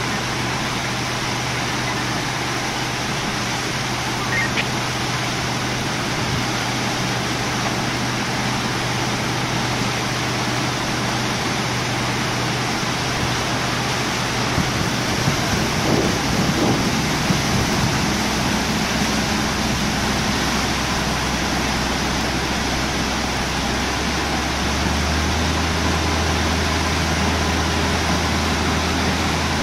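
Water rushing into a canal lock through the upstream gate sluices as the chamber fills, a steady even rush. Under it runs a boat engine's low idling hum, which settles to a lower pitch about 25 seconds in.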